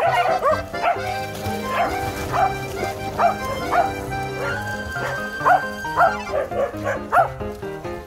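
Welsh Corgis barking over and over, short barks about once or twice a second, over background music with held notes.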